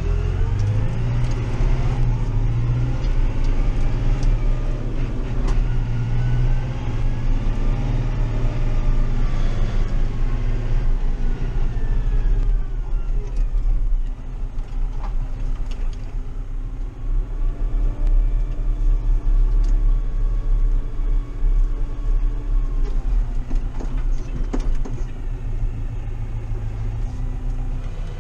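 Massey Ferguson 5440 tractor's diesel engine running and revving, heard from inside the cab, its pitch rising and falling as the throttle changes. The sound shifts briefly about halfway through.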